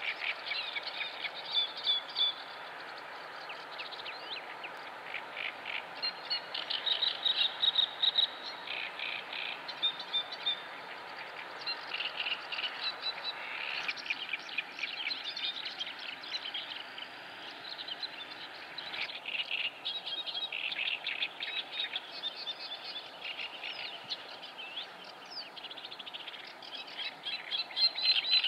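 A brood of mallard ducklings peeping, a dense, unbroken run of short high calls from many chicks at once.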